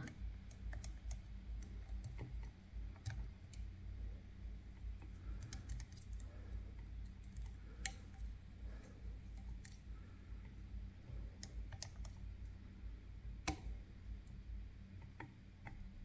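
Faint, irregular clicking of a lock pick and tension wrench working inside a Picard Vigie lock, with two louder clicks about eight and thirteen seconds in.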